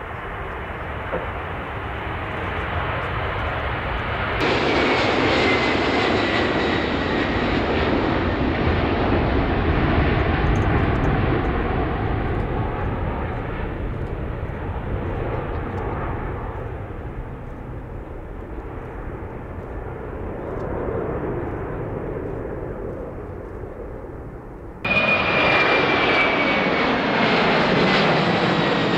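McDonnell Douglas MD-11 trijet's engines at takeoff power as it lifts off and climbs away: loud jet noise with a high whine sliding down in pitch, easing off after about 16 seconds. About 25 seconds in, the sound jumps up abruptly to a Boeing 747's four jet engines passing low overhead, again with a falling whine.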